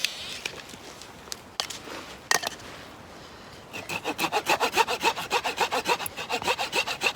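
Hand saw cutting through a wooden stick: a few light knocks as it is set up, then quick, even back-and-forth strokes at about five a second starting about four seconds in.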